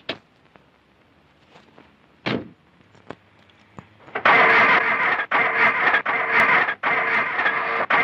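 A car door shuts with a thump. Then, from about four seconds in, a car's starter motor cranks the engine in loud, rough bursts with brief breaks between them, and the engine does not catch.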